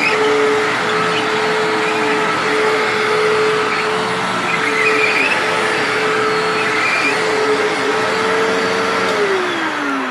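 Hoover WindTunnel Supreme upright vacuum cleaner running with a steady motor tone. About nine seconds in it is switched off, and the pitch falls as the motor spins down.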